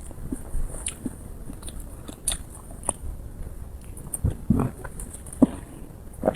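Close-miked chewing of soft, sticky dessert: wet mouth smacks and small irregular clicks, a few louder smacks about two-thirds of the way through.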